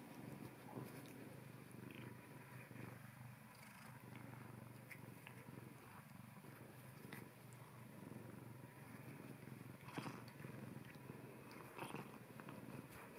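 Domestic cat purring steadily while it grips and play-bites a person's hand, with a couple of short rustles from the play near the end.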